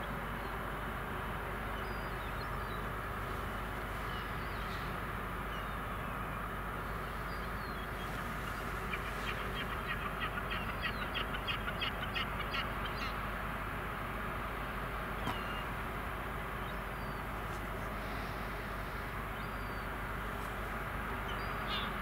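Steady low rumble and hum of the approaching ferry Mecklenburg-Vorpommern carrying across the harbour water. A bird gives a rapid series of harsh calls, about four a second, in the middle, with a few faint chirps elsewhere.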